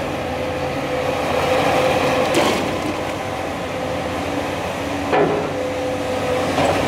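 Caterpillar 336 Next Generation excavator's diesel engine and hydraulics running steadily with a held whine as it swings its boom and demolition attachment, with two sharp knocks about two and a half and five seconds in.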